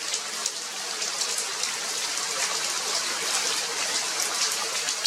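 Steady rain falling, a dense, even hiss made up of many individual drops striking.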